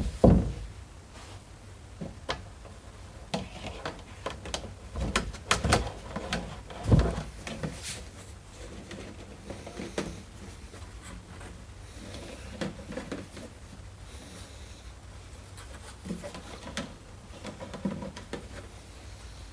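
Irregular clicks, knocks and rubbing from hands handling small parts and wire, with a loud knock right at the start and a few more heavy knocks a third of the way in.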